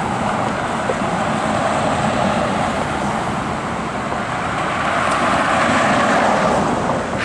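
Road traffic passing close by: a steady rush of car tyre and engine noise that swells to its loudest about six seconds in and drops off near the end.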